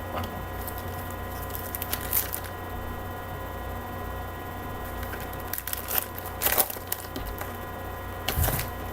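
Foil trading-card pack crinkling and tearing open in a few short bursts, with the cards handled, over a steady electrical hum.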